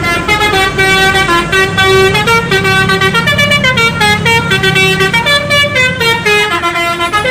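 Bus telolet horn, a set of electric air-horn trumpets, playing a fast tune of short notes that step up and down, several pitches sounding together, over a low rumble.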